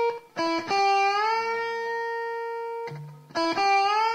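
Electric guitar playing minor-third string bends: a picked note bent slowly up and held for about a second and a half, then picked again and bent up quickly near the end.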